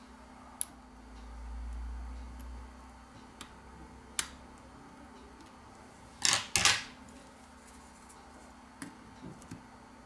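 Small metallic clicks and taps of steel tweezers working on a smartphone's opened motherboard, with two sharper clicks in quick succession about six seconds in. A soft low rumble of handling comes about a second in.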